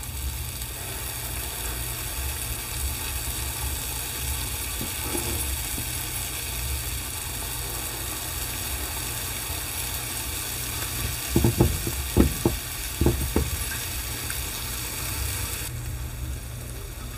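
Oil sizzling steadily in a frying pan as dollops of urad dal batter shallow-fry into dahi vada patties. A few sharp knocks come about two-thirds of the way through.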